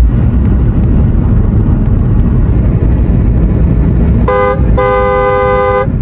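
A two-note car horn honking twice near the end, a short toot and then a longer one of about a second, over the steady rumble of road and engine noise inside a moving car.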